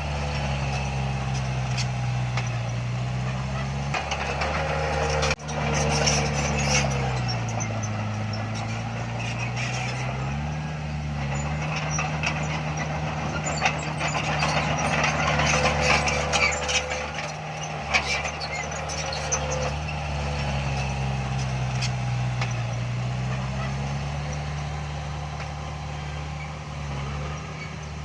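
Heavy diesel earthmoving machine running, its engine pitch sagging and recovering several times as it takes and sheds load, with metallic clatter and clicks over it.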